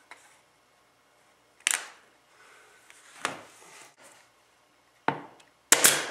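A few sharp knocks and clacks of hard objects being handled: one a little under two seconds in, another just past three seconds, then two close together near the end, with faint rustling in between.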